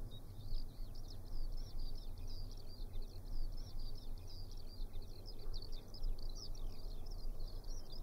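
Many birds chirping in rapid, overlapping calls over a steady low rumble. This is a wind turbine about a kilometre away heard through an open window on a calm day, its sound largely covered by the birdsong.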